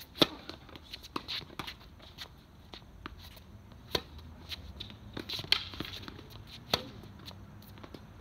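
Tennis ball being struck by rackets and bouncing on the court during play: a string of sharp pops and knocks at uneven intervals, the loudest about a quarter second in, with softer footstep-like scuffs between them.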